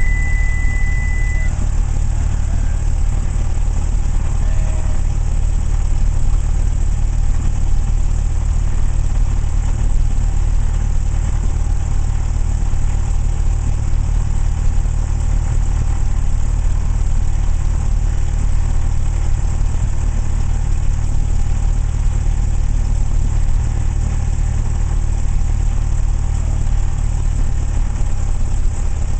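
Cessna 172S Skyhawk SP's fuel-injected Lycoming IO-360 four-cylinder engine idling steadily, heard from inside the cockpit. A short, steady high beep sounds at the very start.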